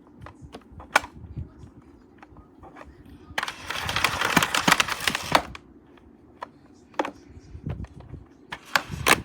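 Hands handling a vacuum cleaner's plastic parts: scattered clicks and knocks, with about two seconds of rustling noise near the middle.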